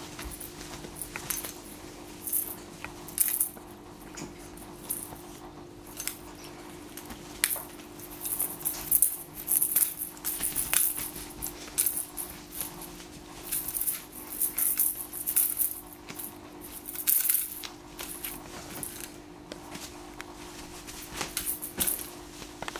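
A wand cat toy's plastic ball and beads rattle and clink in quick, irregular clusters as kittens bat and bite at it. The clusters are densest in the middle stretch. A steady hum runs underneath.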